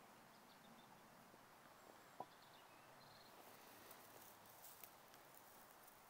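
Near silence: faint outdoor background hiss, with one brief sharp click about two seconds in.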